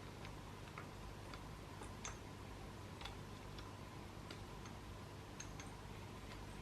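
Faint, irregular light clicks of metal hand tools working on dirt bike engine parts, over a steady low hum.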